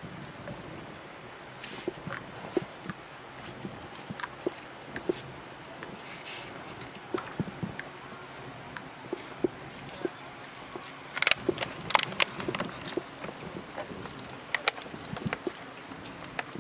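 Steady high-pitched chirring of night insects, with scattered clicks and taps over it and a short cluster of louder knocks about eleven seconds in.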